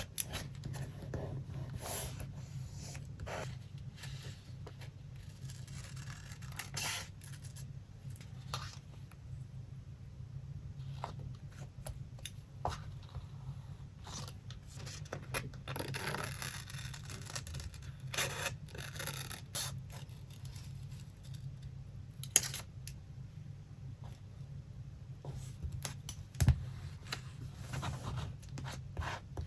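Paper and craft materials being handled for a collage: irregular rustles, scrapes and light taps, over a steady low hum.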